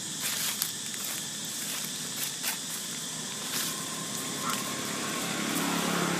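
Outdoor ambience: a steady high hiss with a few scattered faint clicks, and a low hum that comes in near the end.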